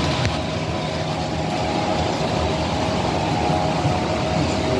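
HO scale model freight train of hopper cars rolling past on the track, a steady running noise with a low hum.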